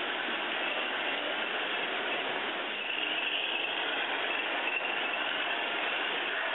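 Large-scale garden model train running past, a steady mechanical rattle of wheels on the track with the whir of the locomotive's geared motor.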